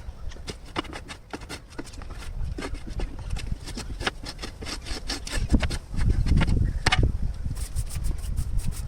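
Irregular rough scraping strokes while a chicken cage is cleaned out of droppings, with a heavier, louder stretch of scraping about six seconds in.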